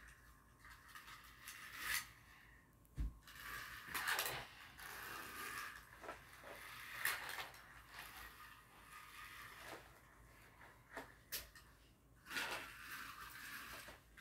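Small plastic toy cars and flexible plastic race-track pieces being handled: faint, scattered clicks, knocks and rattles.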